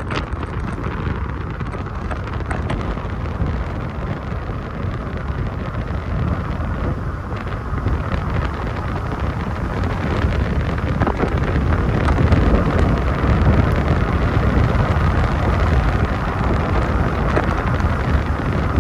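Wind buffeting the microphone of a camera held out of a slowly moving car's window, over the car's road and engine noise. The noise is steady, growing a little louder about halfway through.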